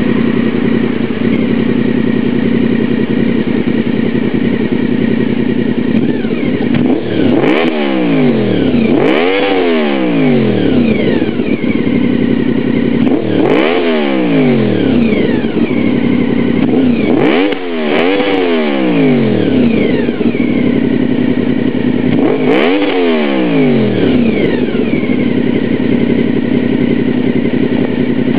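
Honda VFR750F (RC36) V4 engine through a complete Honda RC30 race exhaust system, idling steadily, then revved in quick blips from about seven seconds in, several times, each rise in pitch dropping straight back to idle.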